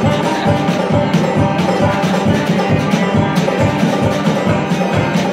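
Live acoustic bluegrass-style band playing an instrumental passage: banjo picking over a steady low beat, with scraped washboard strokes and a lap-played string instrument.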